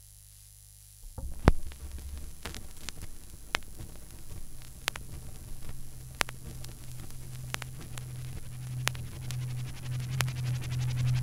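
Stylus set down on a 45 rpm 7-inch vinyl single about a second in, then the lead-in groove's surface noise. A sharp click repeats about every 1.3 seconds, once per turn of the record, the sign of a scratch or mark on the vinyl. A low hum comes in about four seconds in and grows louder.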